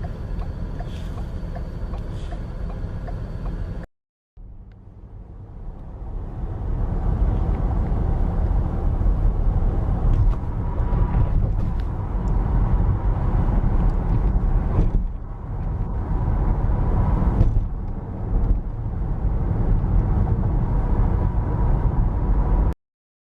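Low rumble of a train in two clips. A short steady one comes first; after a cut, a rumble swells over a few seconds and stays loud, with a faint steady whine.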